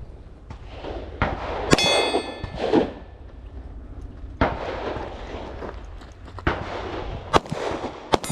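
Pistol shots fired one at a time, several seconds apart, during a shoot-while-moving drill. At least one shot is followed by a metallic ringing clang, typical of a steel target being hit.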